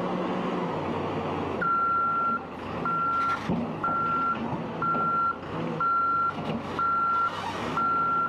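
Caterpillar backhoe loader's diesel engine running, and about a second and a half in its back-up alarm starts beeping: one steady high tone, about one beep a second, over the engine rumble.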